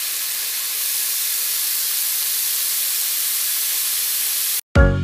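A steady hiss that cuts off suddenly near the end, where music starts.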